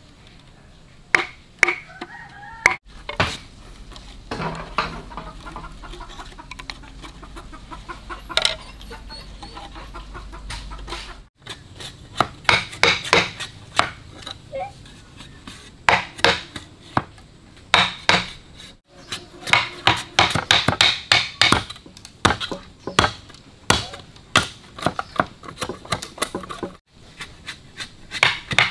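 Chickens clucking: many short, sharp calls and knocks in quick succession.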